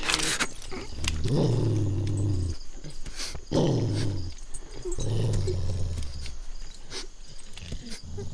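Dog growling low, in three long growls a second or so apart.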